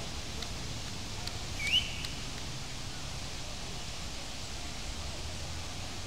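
Steady rushing of a waterfall, with a bird giving one short rising whistle a little under two seconds in.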